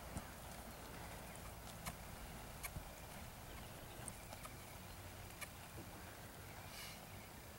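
Faint hoofbeats of an American Quarter Horse mare loping on soft arena dirt: dull footfalls with a few scattered sharp clicks, over a steady low rumble.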